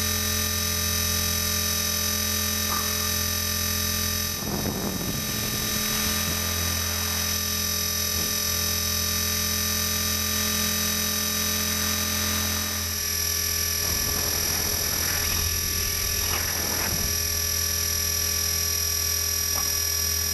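Blade 450 electric RC helicopter's brushless motor and main rotor, heard from the camera on the airframe: a steady, many-toned motor whine over a deep rotor hum. The tone changes a little about two-thirds through, and a few brief rushing noises break in.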